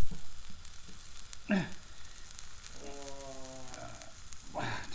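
Butter sizzling in a frying pan under a thick sandwich being pressed down with a metal spatula. A short steady pitched hum comes in about three seconds in.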